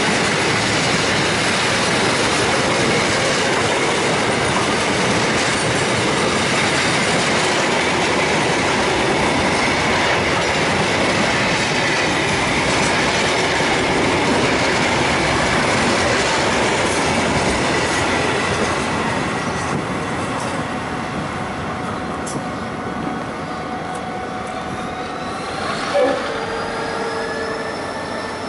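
Container freight wagons rolling past at close range: a loud, steady noise of wheels on rail that eases about two-thirds of the way through as the train clears. Near the end, high squealing tones rise and then hold, with a short sharp knock just before they settle.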